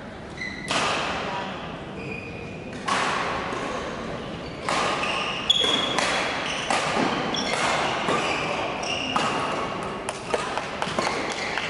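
Badminton rally on an indoor court: rackets strike the shuttlecock with sharp cracks that echo around the hall, a few seconds apart at first and then about once a second. Short squeaks of players' shoes on the court floor come between the hits.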